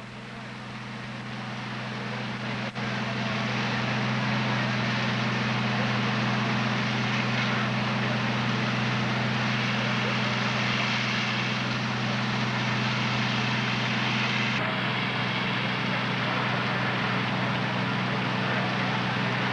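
Fire apparatus engine running steadily, a low drone with a broad rush of noise over it. It grows louder over the first few seconds, then holds steady.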